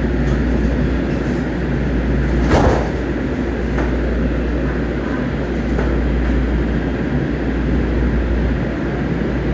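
Light-rail train car's steady low hum and rumble as it stands at the station platform and then starts to pull away, with one sharp knock about two and a half seconds in.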